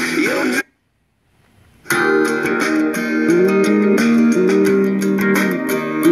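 Music from a pair of handlebar-mounted Bluetooth motorcycle speakers: one track with a wavering lead line cuts off suddenly, and after about a second of silence a different guitar-led track starts, as when the next track is selected.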